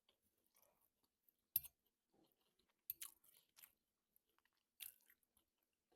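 Faint chewing of a mouthful of fried rice: scattered short, wet mouth clicks and smacks in a few small clusters.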